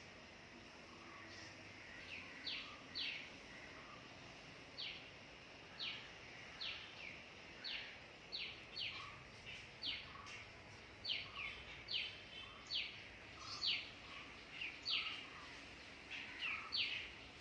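Outdoor birdsong: a bird repeating short, high, sharply falling whistled notes, about twenty of them at irregular intervals, over a faint steady background hiss.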